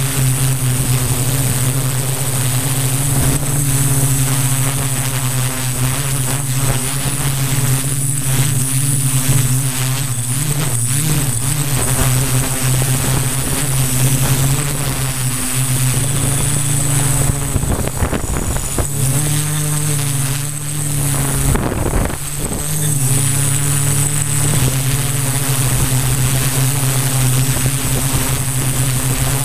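Multicopter's electric motors and 15x5.5 propellers buzzing steadily in a hover, with a thin high motor whine above; the pitch wavers slightly as the motors correct. About two-thirds through, gusts of wind buffet the microphone and briefly break up the buzz.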